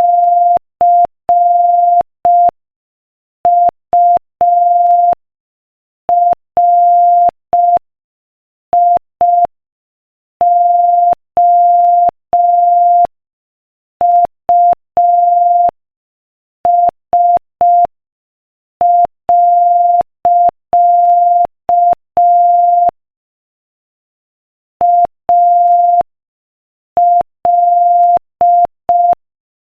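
Morse code at 5 words per minute: a single steady mid-pitched beep keyed on and off into short dits and long dahs, letters separated by short pauses and words by longer ones. Each beep starts and stops with a faint click.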